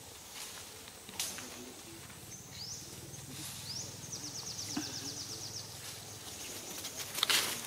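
Outdoor forest ambience with short, rising, high-pitched bird chirps and a rapid high trill lasting about a second and a half midway, plus a brief loud rustle near the end.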